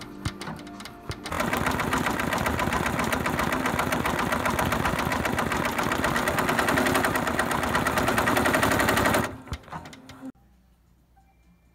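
Computerized embroidery machine stitching through canvas, its needle hammering in a fast, even rattle. It is quieter for the first second, then runs loud and stops about ten seconds in.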